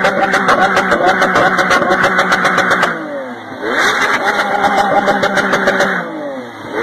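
A car engine revved hard and held at high revs, with a fast pulsing note. The revs drop and climb back again twice, about three seconds in and near the end.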